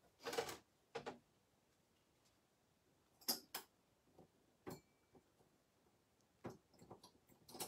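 Faint, scattered clicks and short paper rustles of card-making pieces and tools being handled while cut-outs are made, coming at irregular intervals.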